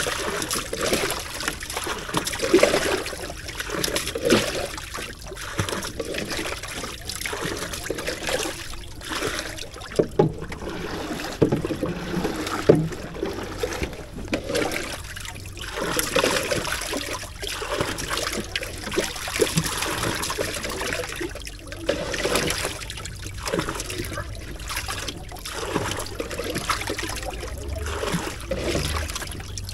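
Water splashing and trickling in a boat's fish well as a catch of live catfish thrashes in it, with irregular sharp splashes throughout.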